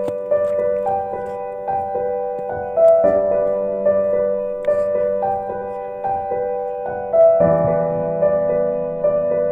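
Background music: gentle piano with held notes and slowly changing chords.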